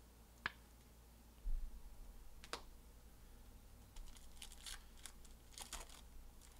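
Faint crinkling and sharp clicks of a foil trading-card pack being handled and torn open: single clicks early on, then a quick patter of crinkles in the last couple of seconds. There is a low thump about a second and a half in.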